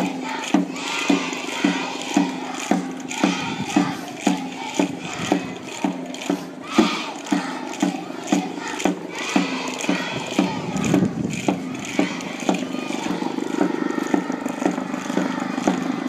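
Children's cheer squad chanting and shouting in unison over a steady beat, about two beats a second. From about ten seconds in, the beat gives way to louder, continuous shouting.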